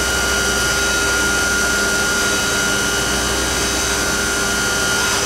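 4-axis CNC machining centre spindle running steadily as it drills the oil hole through the top of an aluminium Rover V8 cylinder head. It is a constant machine whine with a clear steady high tone over an even mechanical hum.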